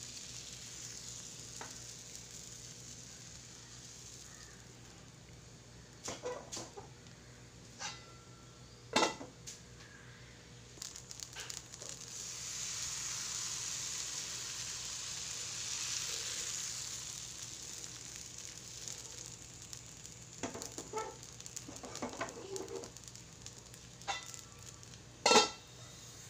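Rice batter sizzling in a hot appam pan (appachatti) on a low gas flame. The sizzling swells for several seconds about halfway through. Short metal clinks and knocks of the pan and lid come now and then, the sharpest near the end.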